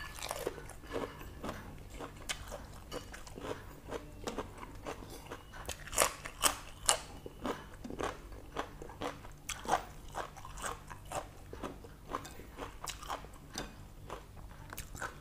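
Close-up chewing of a mouthful of lettuce and boiled intestines: crisp crunches and wet mouth clicks, a few louder crunches about six to seven seconds in and again near ten seconds.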